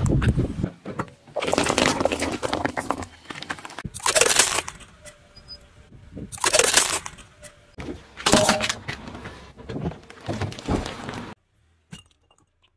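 A car tyre rolling over and crushing plastic toys and tubs of slime on asphalt: about six separate bursts of cracking and crunching, each up to a couple of seconds long, stopping a second or so before the end.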